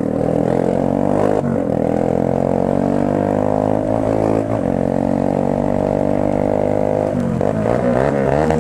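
Motorcycle engine running under way, its note mostly steady, dipping briefly about a second and a half and again about four and a half seconds in, then swinging up and down in pitch near the end as the throttle changes.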